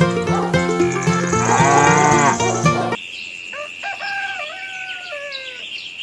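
Upbeat background music with a cow mooing over it. About halfway through it cuts off suddenly to quieter sound: several short animal calls that slide down in pitch, over a steady high tone.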